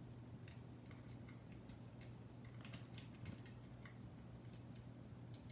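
Faint scattered clicks and light ticks, bunched around the middle, as small plastic wire plugs and leads are handled and pressed into place inside an opened FrSky X-Lite radio transmitter. A steady low hum runs beneath.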